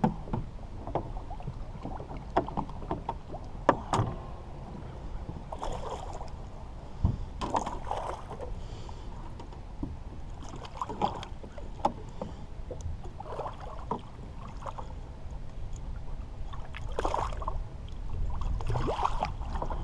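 Small blue catfish splashing at the surface beside the boat while held on the line, with water slapping and occasional sharp knocks against the hull. A steady low rumble of wind on the microphone underneath.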